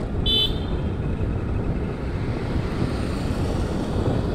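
Wind rushing over the microphone and tyre rumble of a Honda Activa scooter coasting downhill with its engine switched off. A brief high-pitched squeak cuts in about half a second in.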